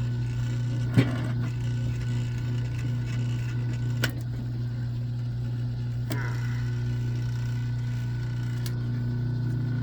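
Motorized wire-stripping machine running with a steady hum as thick 400–500 MCM copper cable is fed through it. A sharp click about a second in, and a smaller one at about four seconds.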